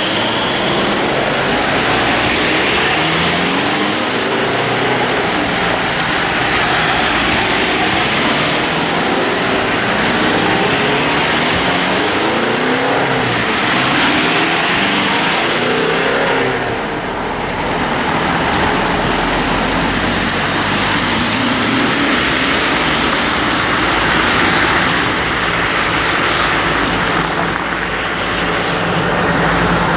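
Mercedes Sprinter ambulances pulling away one after another, their engines accelerating over tyre and road noise.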